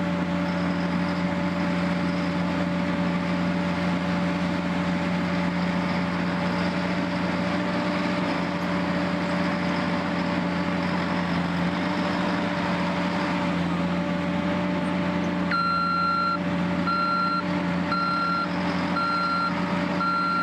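A heavy construction machine's engine running steadily. From about three-quarters of the way in, its reversing alarm beeps about once a second.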